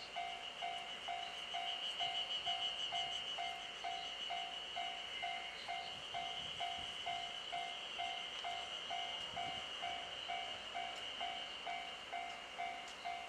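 An electronic warning tone beeping steadily, about twice a second, over a continuous high-pitched buzz.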